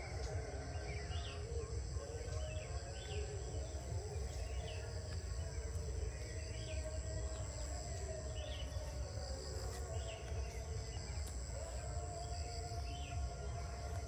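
Rural morning ambience: a steady high drone of insects, a bird repeating a short chirp about once a second, and a constant low rumble underneath.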